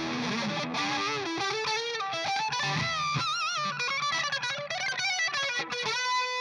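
Distorted electric guitar, a Telecaster, played through an Ibanez FLMINI analog flanger pedal: a single-note lead line with string bends and vibrato.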